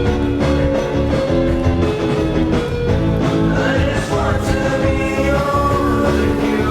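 Background music: a guitar-driven pop-rock song with a steady drum beat, a singing voice coming in about four seconds in.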